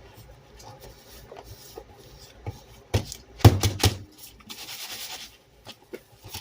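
Cover being fitted onto a cat food container: light clicks and rubbing, a cluster of loud knocks about three and a half seconds in, then a short scraping rub.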